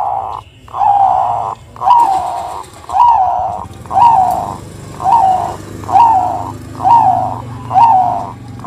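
Bangkok-bred zebra dove (perkutut) cooing: a steady run of short coo notes, about one a second.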